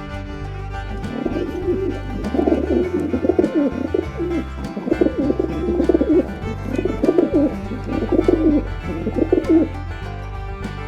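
Pigeon cooing, a series of low warbling coos repeated over several seconds, with background music underneath.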